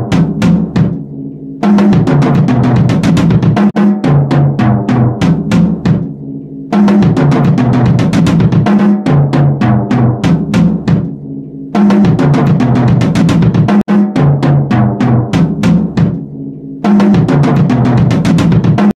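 Drum kit played in fast, even single-stroke rolls on the snare and toms, in four phrases about five seconds long, each followed by a brief pause.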